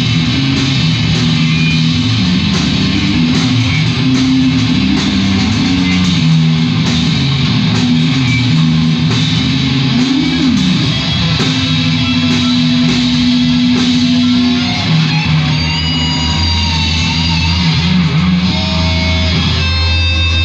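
Rock band playing live: electric guitar over bass and drums, with a bent note about halfway through and a long held note after it.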